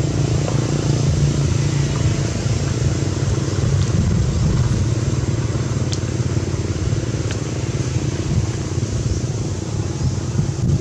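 Motor vehicle engine running steadily, a continuous low drone, with a couple of faint ticks about halfway through.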